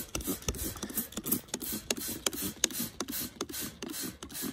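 Plastic trigger spray bottle pumped rapidly, about three quick squirts a second, blasting acid solution onto galvanized corrugated roofing metal to wash the foam down the grooves.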